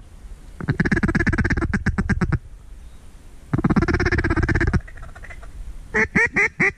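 Mallard duck call blown close by: two long runs of rapid chatter, then five quick, loud quacks near the end, calling to ducks over the decoys.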